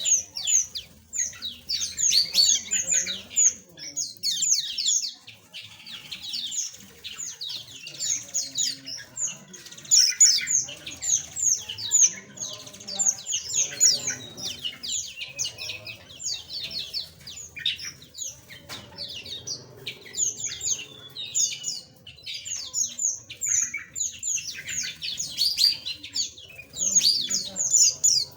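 A flock of small aviary birds chirping without pause: a dense chatter of short, high, downward-sliding chirps from many birds at once.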